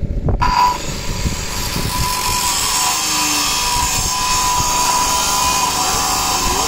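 A power tool starting up about half a second in and then running steadily under load, with a high whine over a steady hiss.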